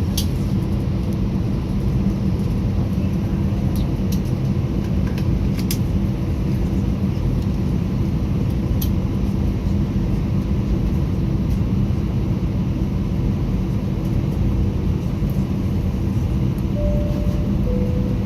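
Airbus A320 cabin noise from inside the cabin: a steady low rumble of the jet engines and air system at low power, with no rise in thrust. Near the end come two short tones, the second lower than the first.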